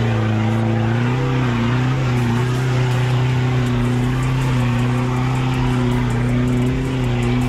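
A 4x4 pickup's engine running at high, fairly steady revs under load as it climbs a steep, muddy slope, the pitch wavering slightly. Faint quick ticks come in from about two seconds in.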